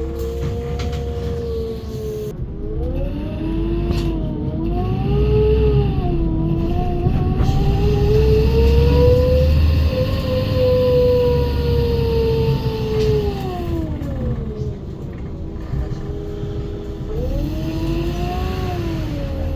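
Menarinibus Citymood 12 CNG city bus under way: a low drone from its FPT Cursor 9 gas engine under a pitched whine that rises as the bus gathers speed, peaks, falls away as it slows, then rises again near the end.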